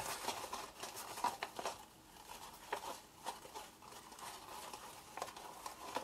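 Faint rustling and scattered light ticks of seam binding ribbon and a cardstock box being handled as the ribbon is tied off.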